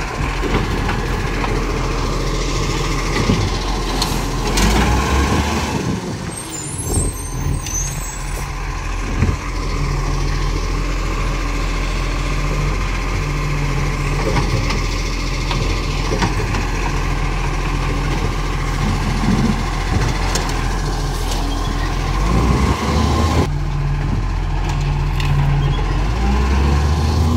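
Side-loading garbage truck's diesel engine running as its automated hydraulic arm lifts and tips wheelie bins into the hopper, with a steady whine and occasional clunks from the bins and arm.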